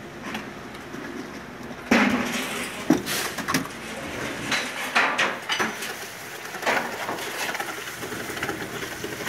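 Wet cement plaster scooped by hand out of a plastic bucket and flicked against a wall to texture it: a run of irregular scrapes and wet slaps, the loudest about two seconds in.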